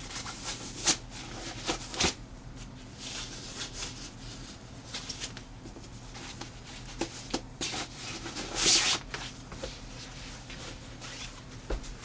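Handling noise as a gun mat's carry bag is opened and the neoprene mat is pulled out: rustling and rubbing with scattered sharp clicks, and a louder rasp about nine seconds in.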